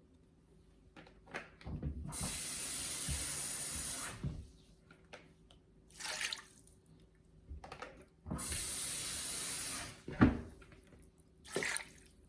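Kitchen tap run twice, each time for about two seconds, with a few knocks of a pot or dish in between.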